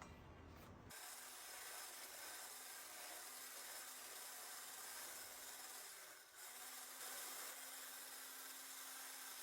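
A faint steady hiss starting about a second in, with a low hum beneath it, breaking off briefly about six seconds in and then resuming.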